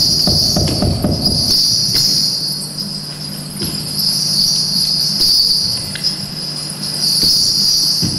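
Small bells jingling continuously as dance accompaniment, the shimmer swelling and easing every second or two over a faint low hum.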